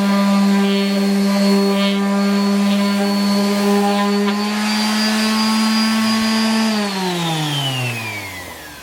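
Corded random orbit sander running steadily on 120 grit paper, then switched off about two-thirds of the way in and winding down, its motor pitch falling as it slows.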